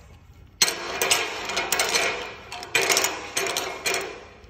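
A metal layout tool scraping and sliding over steel in about five strokes, each starting with a sharp knock.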